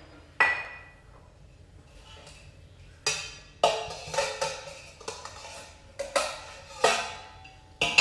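A single ringing clink about half a second in, as a glass baking dish knocks against a steel plate. From about three seconds in, background music plays with a run of sharp, ringing plucked or struck notes.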